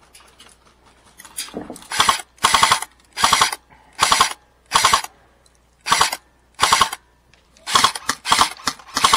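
M16-style airsoft rifle firing about ten short bursts of rapid shots, starting about two seconds in with brief pauses between bursts.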